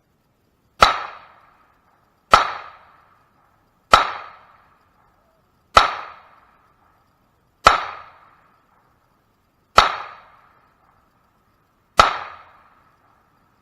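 Seven single pistol shots fired slowly, one every one and a half to two seconds, each a sharp crack with a short echoing tail.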